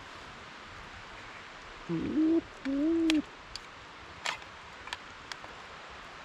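Owl hooting: two low hoots in quick succession, each about half a second long, a couple of seconds in. A few faint clicks follow.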